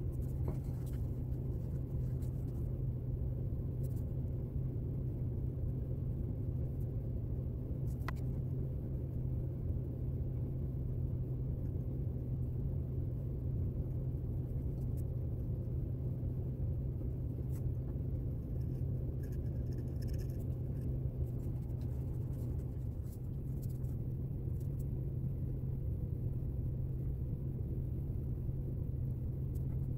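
Steady low hum, with faint scratches and occasional light ticks of a steel pick scraping hardened grease and dirt off a brass clock-movement plate.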